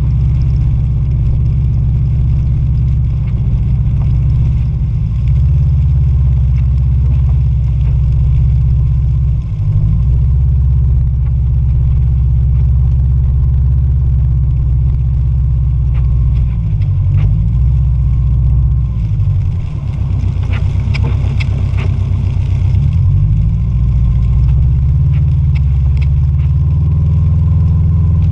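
Subaru Impreza Outback Sport's flat-four boxer engine heard from inside the cabin, its pitch rising and falling as it is revved and shifted through gears. About twenty seconds in, a hiss with scattered clicks rises over it for a few seconds.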